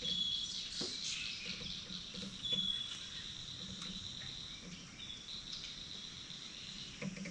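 Outdoor insect chorus, a steady high buzzing, with a short high note repeating about every two and a half seconds and a few faint small clicks.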